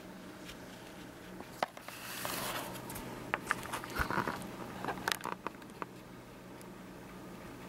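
Camera handling noise: soft rustles, scratches and a few sharp clicks starting about a second and a half in, over a steady low hum.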